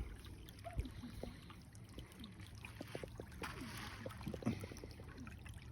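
Faint trickling of a small river, under a low steady rumble.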